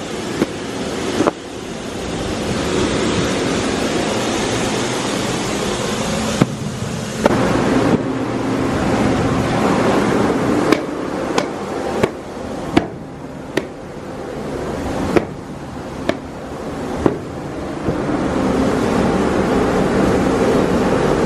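Farm machinery running with a loud, steady rushing noise and a low hum, broken by about a dozen sharp clacks, most of them close together in the middle of the stretch.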